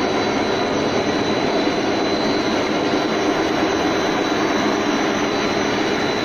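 Wire electroplating production line running in a factory hall: a steady, unbroken machinery noise with a thin high whine over it.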